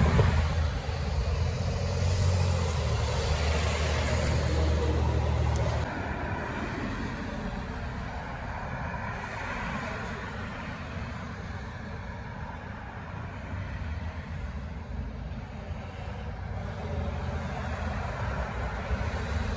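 Steady low rumble of outdoor background noise, which cuts off abruptly about six seconds in and leaves a quieter ambient hum.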